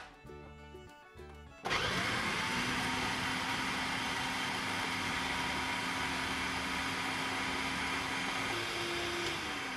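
A food processor's motor and blade start up suddenly about a second and a half in and run steadily, blending spinach, banana, eggs and milk into a smooth batter. Near the end the motor's hum steps up in pitch briefly, then begins to drop.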